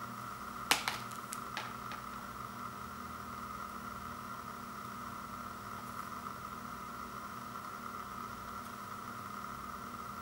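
A sharp plastic click followed by a few lighter clicks as an empty plastic Blu-ray case is handled and set down, then only a steady hiss with a faint hum.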